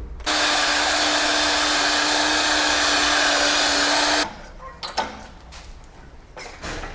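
A workshop tool runs with a steady hiss and a low, even hum for about four seconds, then cuts off abruptly. A few light metallic clinks follow.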